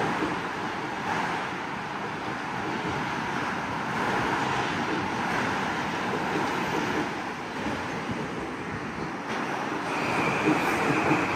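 Metro-North M8 electric multiple-unit train running past the platform: a steady rush of wheels on rail. A thin, steady high tone joins it near the end.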